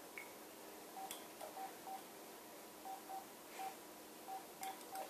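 A series of about ten short, faint electronic beeps at one pitch, coming at irregular intervals, with a few light clicks among them.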